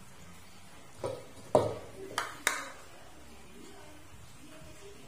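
Kitchenware being handled: four short, sharp clinks and knocks in quick succession in the first half, each with a brief ring.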